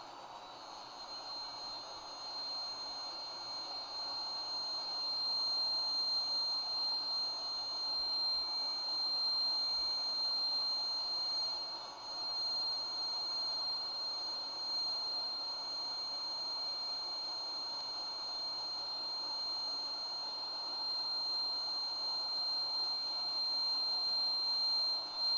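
Electric air blower running steadily, blowing air through a hose into an inflatable suit to keep it inflated. The rushing air has a constant thin high whine over it, and it grows a little louder over the first few seconds.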